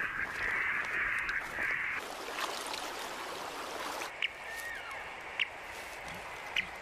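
Radio-tracking receiver: a hiss of static for about the first two seconds, then three short high beeps about a second apart. The beeps are the pulses of a radio transmitter fitted to a platypus, picked up through the antenna.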